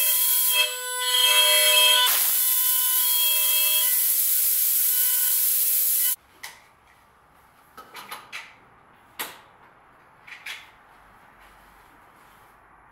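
Router spindle of a gantry-mounted woodworking machine running at high speed with a steady whine while cutting into a clamped wooden panel, with a brief dip in the sound about a second in. The machine sound cuts off abruptly about six seconds in, leaving a handful of light knocks of the wooden panel being handled.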